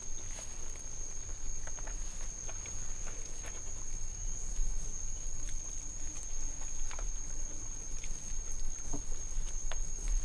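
A person eating with their hands from a leaf: scattered small clicks and crackles of handling and chewing food, over a steady high-pitched whine and a low hum.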